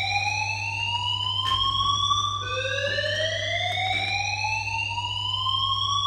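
Fire alarm sounders in full alarm, each giving a slow rising whoop that climbs for about four seconds, drops back low and starts again about halfway through. The alarm was raised by a manual call point.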